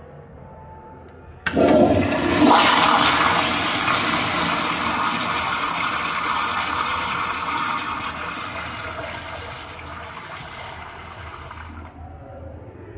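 Commercial Kohler Kingston wall-hung toilet flushing through its chrome flushometer valve. The loud rush of water starts suddenly, then slowly dies away over about ten seconds as the valve shuts off.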